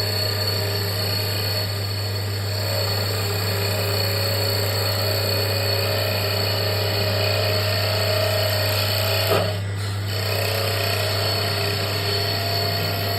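Automatic mini CNC wood bead making machine running, its motor giving a steady hum with a steady high whine. About nine and a half seconds in there is one brief louder burst, then a short dip before the steady running resumes.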